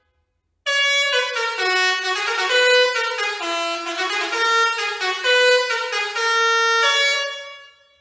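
Basuri 5.0 six-trumpet musical air horn playing one of its built-in melodies, a run of distinct horn notes. It starts about half a second in and fades out near the end.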